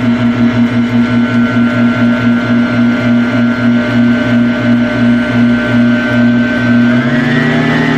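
Countertop blender motor running steadily with a low pulsing hum, grinding a dry mix of fruit and salt into powder; its pitch rises about seven seconds in.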